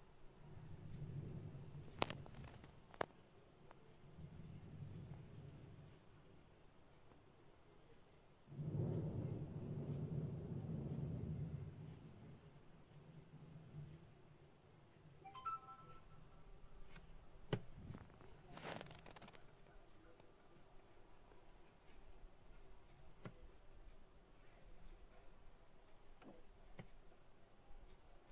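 Crickets chirping in a steady, rapid pulse in the background. There are soft low rumbles at times, loudest a third of the way in, and a few sharp clicks.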